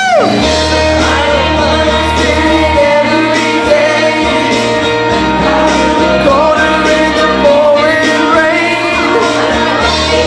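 Karaoke: a young woman and a young man singing into handheld microphones over a backing track, through the room's speakers.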